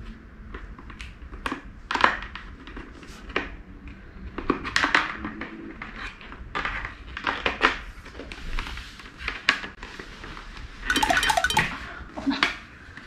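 Irregular plastic clicks and knocks of a full-face helmet's visor being worked off and onto its side mounts and handled, with a denser clatter about eleven seconds in.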